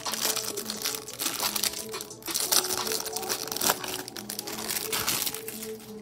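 Clear plastic wrapper on a stack of trading cards crinkling as it is peeled and pulled off, with a few sharper crackles.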